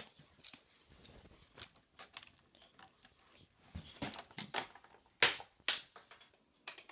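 Scattered light plastic clicks and taps from a keycap being pried off a Logitech rubber-dome keyboard and handled, with a few sharper clicks about five seconds in and near the end.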